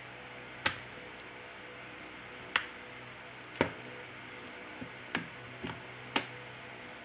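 Plastic back cover of a Samsung Galaxy M20 being pried off with a plastic opening pick: about six sharp clicks at irregular intervals as its clips snap loose.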